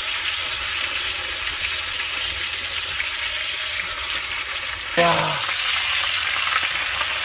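Thick pork belly slices (samgyeopsal) sizzling steadily in a frying pan of rendered pork fat on a portable gas stove, a constant hiss. The fat is so plentiful that the meat is almost deep-frying.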